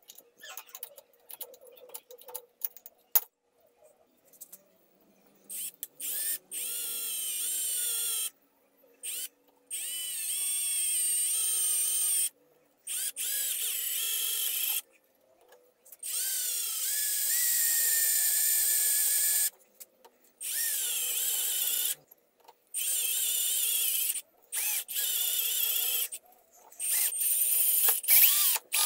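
Electric drill with a twist bit boring into a metal tube held in a vise. It runs in repeated bursts of a few seconds with brief stops between them, a high-pitched whine that slides in pitch at several starts. The first few seconds hold only a few light clicks.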